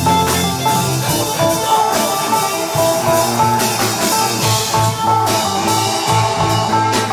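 Instrumental jam-style music with guitar and drum kit, a busy mix of held and changing notes over steady drum hits.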